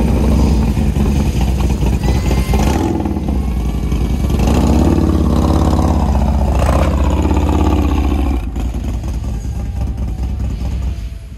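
Harley-Davidson Road Glide's built 131 cubic inch V-twin running, revved harder for a few seconds as the bike is ridden up a loading ramp. The engine stops about eight seconds in.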